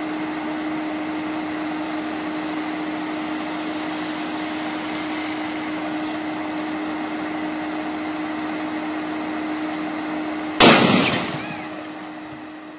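Steady outdoor hiss with a faint hum, then one loud bang about ten and a half seconds in that dies away over about two seconds: an electrical short-circuit blast on a utility pole's overhead lines.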